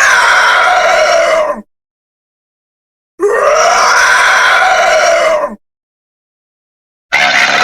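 Horror-beast cry sound effect: a loud screeching monster roar that ends about one and a half seconds in, a second one about two and a half seconds long in the middle, and a third starting near the end, with dead silence between them.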